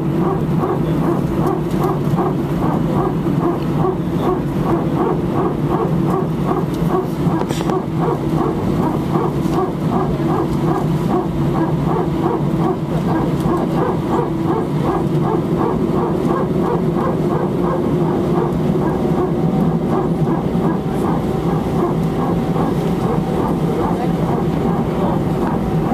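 Airbus A319 hydraulic power transfer unit (PTU) barking inside the cabin: a rapid, even, dog-like pulsing of about four beats a second over the steady cabin and engine hum, with a steady tone joining about twenty seconds in. The PTU runs like this when the hydraulic systems are pressurised unevenly, typically during single-engine taxi or engine start.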